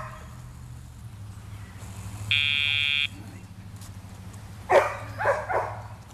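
A steady, high-pitched electronic buzz tone, sounding once for under a second about two and a half seconds in, from the Dogtra e-collar training system.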